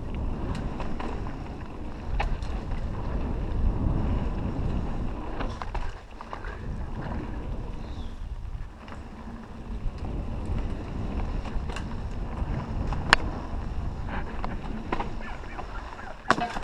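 Mountain bike rolling fast down dirt singletrack: a steady low rumble of tyres and wind buffeting the helmet camera's microphone, with scattered sharp clicks and knocks from the bike over bumps, the loudest about three seconds before the end.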